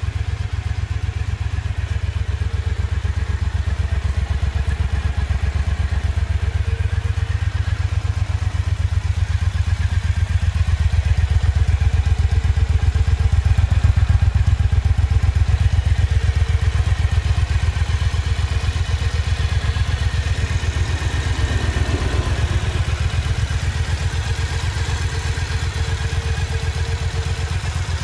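Triumph Bonneville America LT's 865cc air-cooled parallel-twin engine idling steadily.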